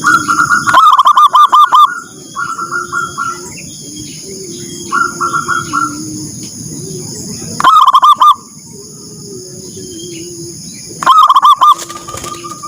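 Zebra doves (perkutut) cooing in phrases of rapid pulsed coo notes about a second long. Loud phrases come at the start, about eight seconds in and near the end, with quieter answering phrases between them.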